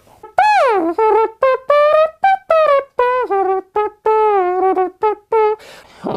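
A man imitating a trumpet with his voice: a quick run of short, pitched notes that opens with a falling swoop.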